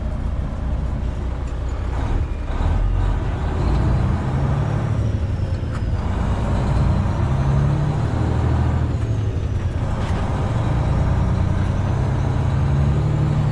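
Semi truck's diesel engine heard from inside the cab, pulling a heavy load. Its note drops off and picks up again at a new pitch a few times, as with gear changes.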